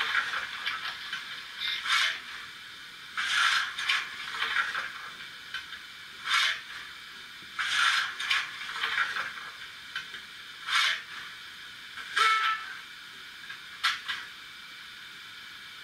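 Sound-decoder steam effects from a Märklin Trix 22960 BR 96 Mallet model steam locomotive: short hisses of escaping steam every second or two, with little low end.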